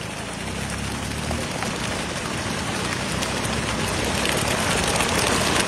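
Freshly landed mackerel tuna thrashing in a beach-seine net on wet sand: a dense patter of many small slaps and flicks that grows louder toward the end.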